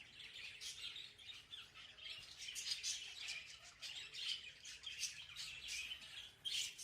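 A flock of budgerigars chirping and chattering: a dense, unbroken run of short, quick chirps.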